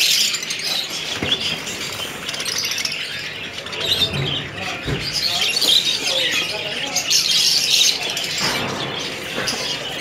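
Several young Alexandrine parakeet (raw parrot) chicks calling together, a continuous chorus of shrill chirps and squawks.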